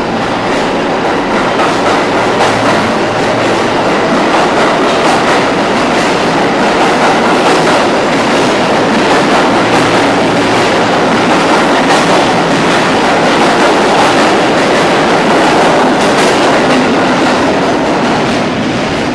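New York City subway train moving past the platform of an underground station, a loud, steady din of wheels and cars on the rails with clicking over the rail joints.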